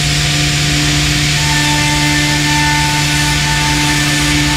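Thermwood Model 53 CNC router running steadily as it machines a volute: a constant low hum and a higher whine over a wash of cutting and air noise, with a further tone joining about a second and a half in.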